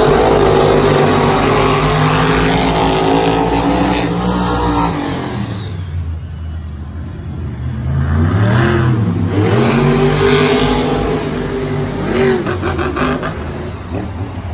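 Two monster trucks' supercharged V8 engines revving hard as they race, the pitch sweeping up and down as the drivers get on and off the throttle. The engines ease off about six seconds in, then rise again, with a few sharp knocks near the end.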